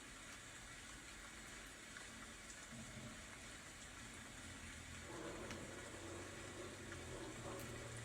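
Faint, steady rain: an even hiss that grows a little fuller about five seconds in.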